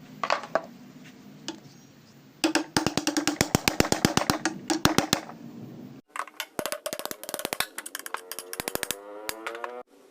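Black Butterfly domestic sewing machine's mechanism running in two short bursts, clicking rapidly at about eight to ten clicks a second, with a pitched whine under the first burst.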